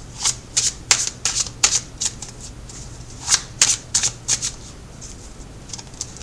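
A tarot deck being shuffled by hand: a quick, irregular run of short papery card strokes that thins out after about four and a half seconds.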